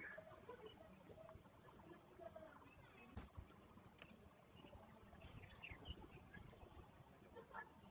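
Near silence: a faint steady high-pitched whine, with a sharp click a little after three seconds and another at four seconds.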